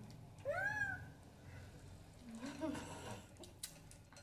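A short wordless vocal sound, its pitch rising then falling, about half a second in, then a low murmured voice, and a single light click near the end.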